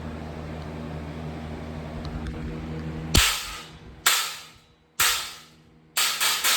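Cymbal stack, two hi-hat cymbals stacked on a 14-inch Meinl HCS, struck five times with short, bright, trashy hits. The first comes about three seconds in, after a steady low hum. The next follow about a second apart, and the last two come close together near the end.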